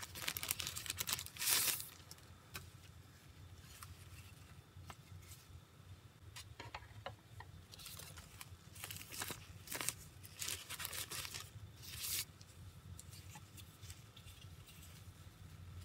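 Tissue paper and thin plastic wrapping rustling and crinkling in irregular bursts as they are handled and pulled aside. The loudest rustles come about a second and a half in and again over a few seconds in the second half. A faint, steady low hum sits underneath.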